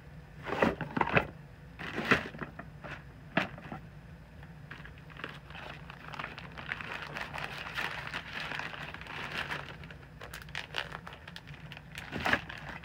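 Clear zip-top plastic bag crinkling as a rubber golf disc is slid into it, with a few sharp knocks of discs being handled in the first few seconds and once near the end.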